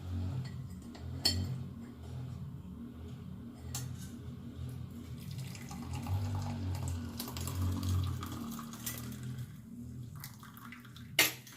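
Hot kadha (herbal decoction) being poured from the pan through a strainer into a cup, a trickling stream of liquid, heaviest in the middle. A sharp clink of utensils near the end.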